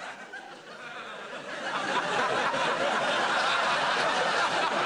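Studio audience laughing: the laughter starts low and swells up over the first two seconds, then carries on loud.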